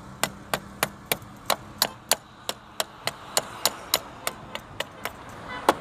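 A steady run of sharp clicks or taps, about three a second.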